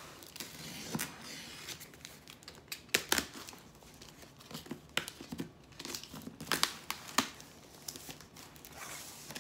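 Cardboard shipping box being opened by hand: packing tape tearing and cardboard and packing material rustling and crinkling, with several sharp cracks at irregular moments.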